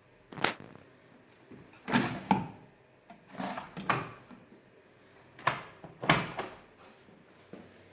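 Clunks and knocks from a washing machine being handled, about half a dozen sharp ones spaced over several seconds.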